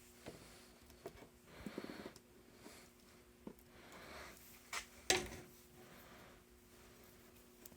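Quiet handling sounds of grease being worked onto a steel vise: light clicks and soft rubbing, with one sharp click about five seconds in, over a faint steady hum.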